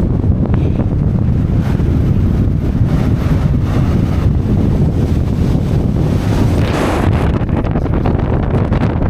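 Strong wind buffeting the camera microphone: a loud, steady low rumble with gusts rising and falling, and a brighter gust near the end.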